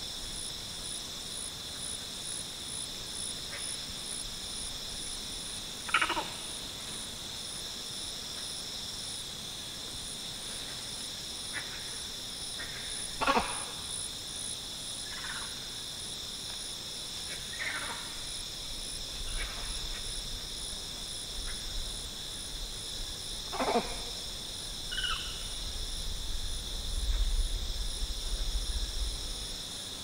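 Grey-cheeked mangabeys giving short, clear calls every few seconds, the loudest about six, thirteen and twenty-four seconds in, over a steady high drone of stridulating cicadas. A low rumble rises near the end.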